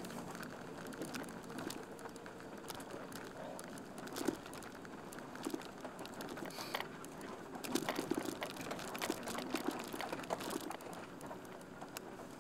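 Irregular clicks, knocks and rattles over a steady low rumble inside a van rolling slowly across rough pasture, with a busier cluster of knocks about two thirds of the way through.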